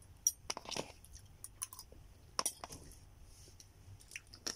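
Metal spoon and fork clinking and scraping in a bowl of fried chicken and rice, a few scattered light clicks, with some chewing.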